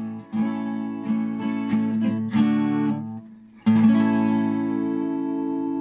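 Acoustic guitar music: strummed chords struck every half second or so, a short break about three seconds in, then a last chord left ringing.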